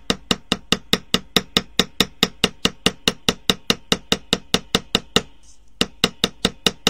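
Small brass hammer tapping copper wire on a steel bench block: quick, sharp metallic taps about five a second, with a short pause just after five seconds in. The light blows work-harden the round wire without flattening it.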